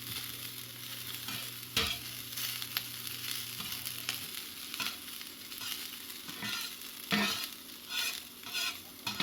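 Chopped onions and ham sizzling in a polished Lodge No. 8 cast iron skillet, with a steady frying hiss. A utensil stirs the food and scrapes and taps against the pan now and then, a sharp strike about two seconds in and several more near the end.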